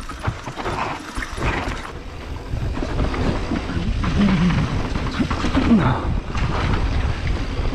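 Mountain bike riding fast down a dirt singletrack: wind buffeting the bike-mounted camera's microphone over the rumble of the tyres on the dirt, getting louder about three seconds in as speed picks up.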